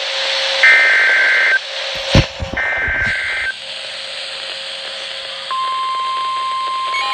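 NOAA Weather Radio broadcast of an Emergency Alert System SAME header: buzzy digital data bursts about a second long, repeated about a second apart over radio static, with a brief crackle between them. About five and a half seconds in, the steady 1050 Hz weather radio warning alarm tone starts, signalling that a new warning is about to be read.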